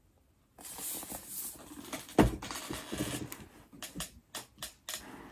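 Vinyl LP album jacket and sleeve being handled: rustling and scraping, a sharp knock about two seconds in, then a run of light clicks and taps.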